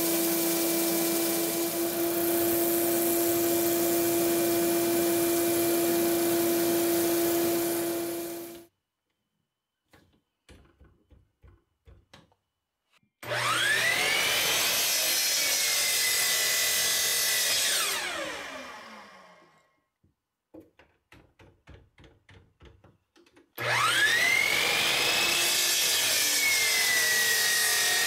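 Bandsaw running steadily with a constant hum while a hardwood block is cut; it stops abruptly about eight seconds in. After some light handling clicks, a miter saw starts up twice: each time its motor whine rises, holds through a cut into the block, then falls in pitch as the blade spins down.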